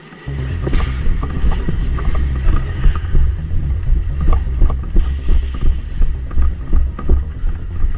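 Running footsteps, about three a second, over a heavy low rumble of wind and handling noise on a body-worn action camera's microphone.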